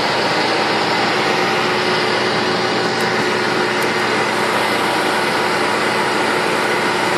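ProForm Crosswalk 395 treadmill running: a loud, steady whir of the drive motor and belt, with a few constant tones in it.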